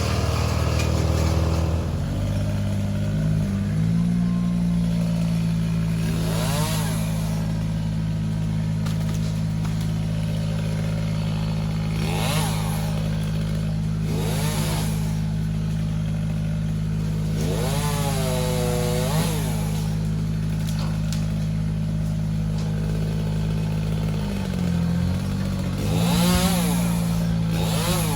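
A large engine running steadily in the background while a chainsaw revs up and back down about five times, each rev lasting about a second.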